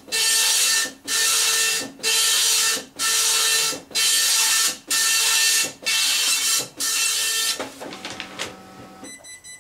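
Dot matrix printer printing, its print head rasping across the page in eight loud passes, about one a second. Near the end the passes give way to a quieter, lower whir with a steady hum for about a second and a half, and then it stops.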